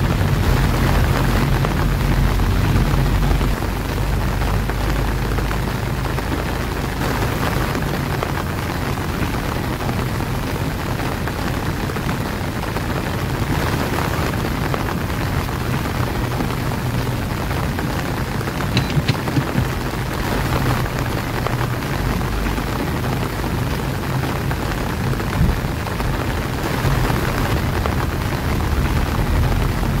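Heavy rain falling steadily on a car's windshield and roof, heard inside the cabin, over the low rumble of the car driving on a wet road.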